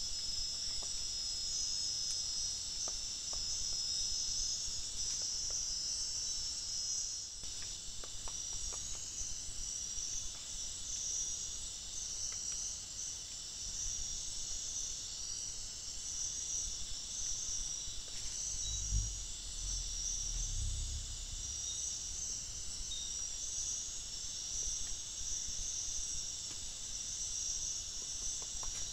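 Night insects chorusing in a steady, dense, high-pitched trill, with a couple of low thumps about two-thirds of the way through.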